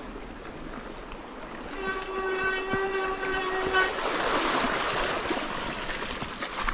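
A steady, single-pitched squeal held for about two seconds, then rushing, splashing river water that is louder than the squeal, beginning about four seconds in.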